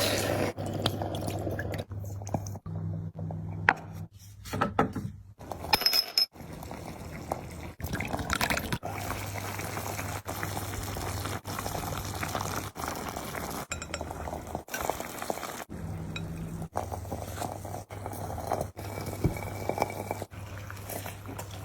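Glass and dishes clinking and a drink being poured, in a run of short clips with abrupt cuts, over a steady low hum.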